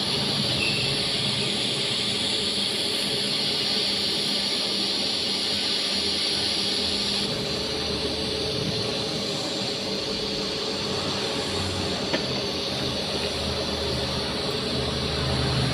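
TIG (argon) welding arc burning steadily, a continuous hissing buzz with a low hum underneath; the hiss drops a little about seven seconds in.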